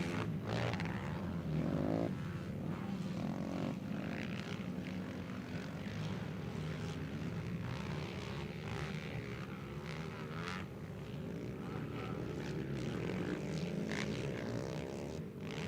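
Racing ATV quad engines running on the track, several at once, their pitch rising and falling with the throttle.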